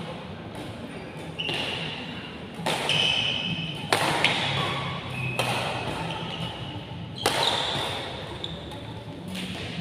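Badminton rackets striking the shuttlecock in a rally, about six sharp hits a second or two apart, with short high squeaks after several of them.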